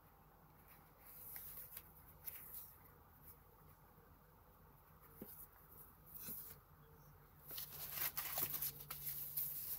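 Faint paper rustling and soft taps as the pages of a handmade paper journal are turned by hand. The rustling gets louder and busier in the last two seconds as the journal is picked up and turned over.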